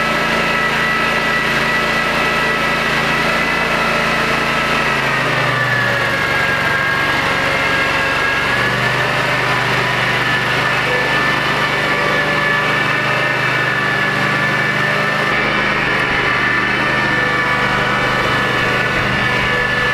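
Walker riding mower with grass catcher running steadily, its engine under a loud high whine, a noise called hideous. The engine note shifts about five seconds in and again a few seconds later as the mower moves off.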